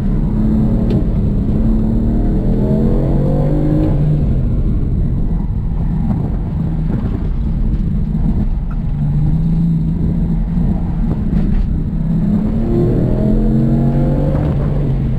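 2016 BMW M3's twin-turbo inline-six engine, heard from inside the cabin, revving hard: its pitch climbs over the first few seconds, drops back, then climbs again from about nine seconds in to near the end. A steady low rumble runs underneath.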